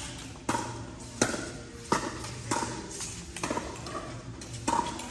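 Pickleball paddles striking a hollow plastic ball during a rally, a string of sharp pocks with a short ringing tone, about six in five seconds at uneven spacing.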